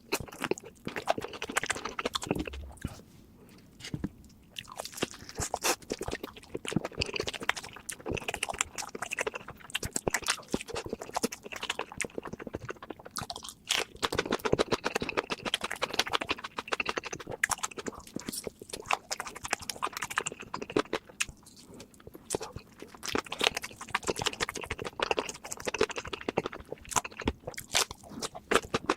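Close-miked eating sounds: steady, irregular chewing and crunching of food, with a short pause about three seconds in.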